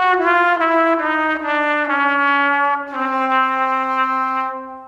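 Silver trumpet played in a run of short notes stepping down in pitch one after another, the valves changing the tubing length for each note. The run ends on a long held lower note that fades out near the end.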